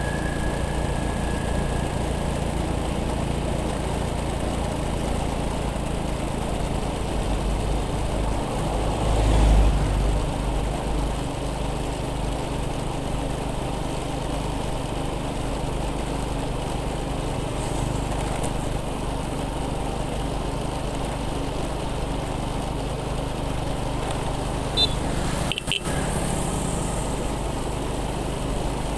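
Steady engine and road noise of a motorcycle on the move, swelling briefly about ten seconds in, with a short click and a brief dropout near the end.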